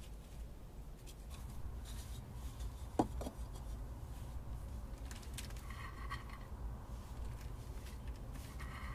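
Quiet hand-handling of woven baskets and a small vessel: soft rustling, with one sharp knock about three seconds in, over a low steady rumble.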